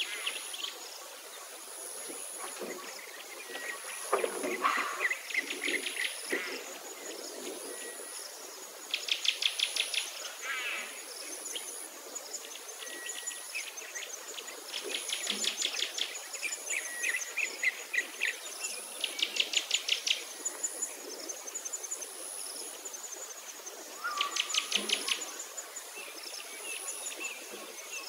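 Insects calling with a high thin note that pulses about once a second, with rapid chirping trills of about a second each coming every few seconds.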